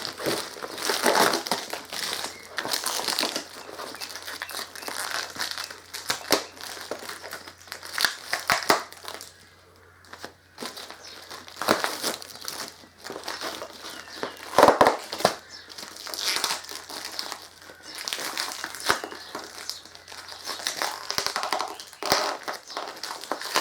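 Plastic shrink-wrap packaging being crinkled and pulled off windscreen mounting parts: irregular crackling and rustling, with a pause about ten seconds in and a louder crunch about halfway through.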